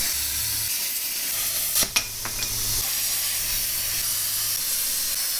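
Handheld plasma cutter hissing steadily as it cuts through quarter-inch-thick steel, with a sharp crack about two seconds in.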